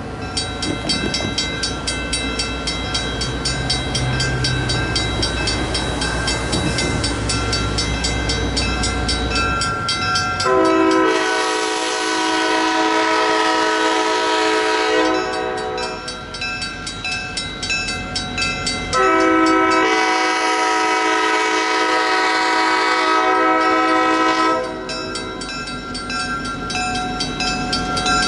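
Nickel Plate Road 765's steam whistle blowing two long chime blasts for a grade crossing, the second longer than the first, over grade-crossing bells ringing steadily. A low rumble of the approaching train runs under the first third.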